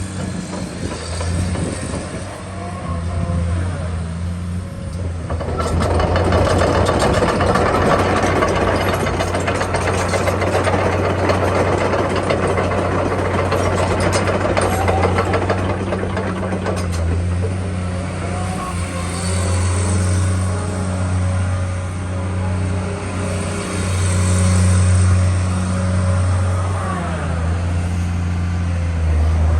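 Komatsu PC210-10M0 excavator's diesel engine running with a steady low hum. From about six seconds in until about sixteen seconds it grows louder, with a busier machine noise on top.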